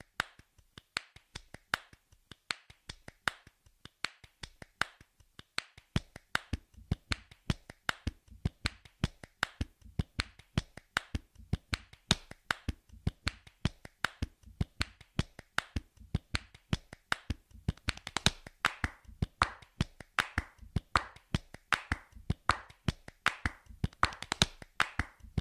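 A rapid run of sharp clicks or claps, several a second, with a low thud under many of them from about six seconds in.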